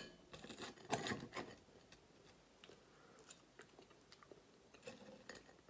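Metal knife and fork clinking and scraping on a ceramic plate in the first second and a half, then faint chewing and mouth sounds with scattered soft ticks.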